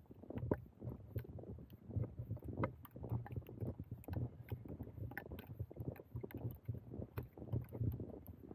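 Wind buffeting the microphone of a small action camera, giving an uneven low rumble, with scattered faint ticks throughout.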